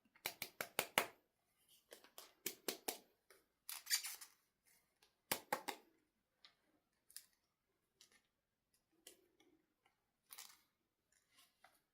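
Scissors snipping in quick runs of three to five sharp cuts, then fewer and fainter snips in the second half.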